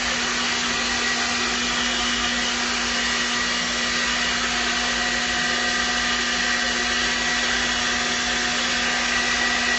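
Hair dryer running steadily to dry a freshly bathed dog: an even rushing noise with a constant hum.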